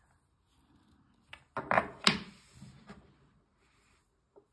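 Wooden toy food pieces being handled on a table: a few sharp wooden knocks and clacks cluster about a second and a half to two seconds in, with a small click near the end.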